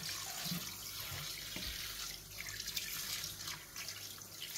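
Kitchen tap running steadily into a stainless steel sink, the water splashing over chicken livers and hearts being rinsed by hand in a plastic colander.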